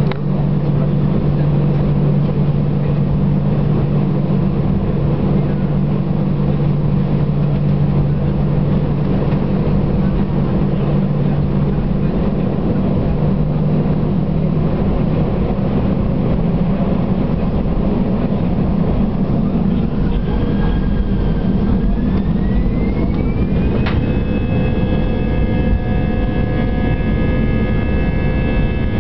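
Airbus A319 twin turbofan engines heard from inside the cabin: a steady low hum, then about three-quarters of the way through a whine rising in pitch as the engines spool up for takeoff. A click follows, and the whine settles into a steady set of high tones.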